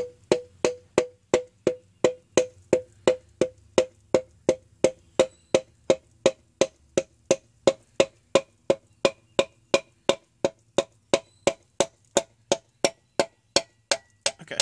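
A hammer tapping a piston down through a ring compressor into the cylinder of a Ford Focus 2.0L SOHC engine block: a steady run of short, hollow, ringing taps, about three a second, stopping suddenly at the end.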